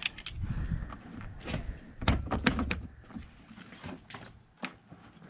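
Hand tools knocking and clanking against metal, about seven sharp knocks spread over a few seconds, while working at a seized wiper spindle nut that keeps spinning instead of coming undone.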